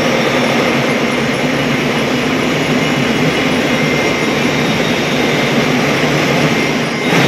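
A drum and bugle corps' drums and cymbals playing a loud, steady roll that smears into a dense wash, with a sharp hit right at the end.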